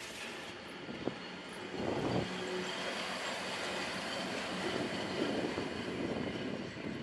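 SBB Re 620 (Re 6/6) six-axle electric locomotive passing close by: wheels running over the rails, with a sharp click about a second in. From about two seconds in it gets louder and a steady low hum joins in.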